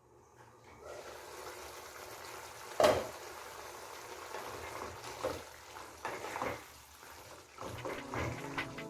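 Pepper chicken cooking in a pan with a steady sizzle, a sharp clank of a utensil against the pan about three seconds in, and a few softer knocks from stirring later on.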